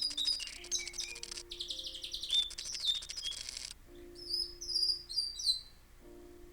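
Pet canary singing: fast buzzing trills and rolls for the first three and a half seconds, then a run of quick high whistled slurs, with soft piano notes underneath.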